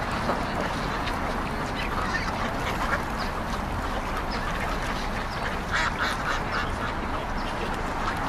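Waterfowl calling over a steady background hiss: short, scattered calls throughout, with a brief cluster about six seconds in.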